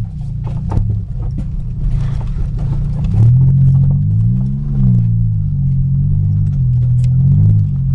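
Pontiac Grand Prix engine heard from inside the cabin while the car is driven along a rough dirt trail, its pitch rising and falling twice in the second half. Scattered knocks from the car bouncing over the ground, most of them in the first few seconds.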